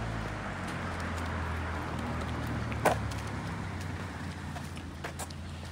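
City street ambience: a steady low hum of motor traffic. A single short, sharp sound cuts through about three seconds in, and there are a couple of faint ticks near the end.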